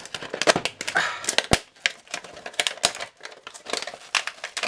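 Stiff clear plastic blister packaging being cut and pried open by hand, giving an irregular run of sharp clicks, snaps and crackles.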